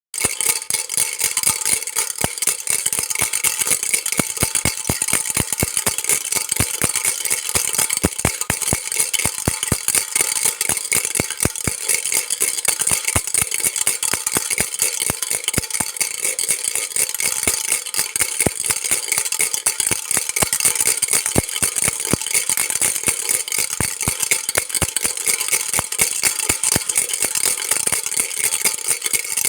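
Baby rattle shaken continuously, a dense, steady stream of clicking.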